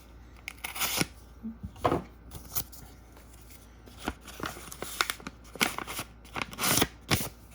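Paper wrapping and tape being torn and handled while a mailed trading card, packed in index cards, is unwrapped by hand: a series of short, irregular rips and crinkles.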